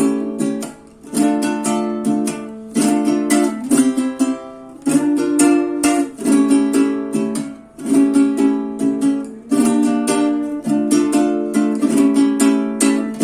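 Venezuelan cuatro, a small four-string guitar, being strummed in a quick, steady rhythm with the chords changing every second or two.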